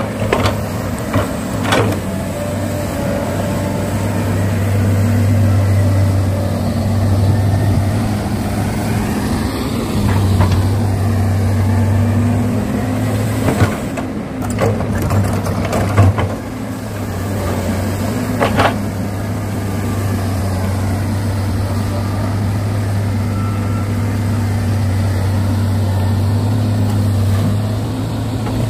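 Excavator running with a steady low drone that eases off briefly a couple of times, with scattered knocks and scrapes from the digging and loading.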